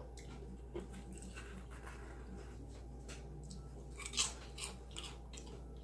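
A person chewing and biting food, with small wet clicks and crunches; the loudest crunch comes about four seconds in.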